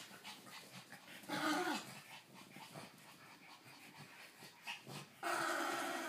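A French bulldog and a Maltese play-wrestling: a short growl about a second and a half in and a longer, steady growl near the end, with faint snuffles and scuffling between.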